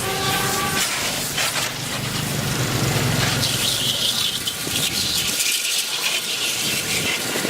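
Steady hissing and rubbing noise of a refrigerator being cleaned, with a brief tone right at the start.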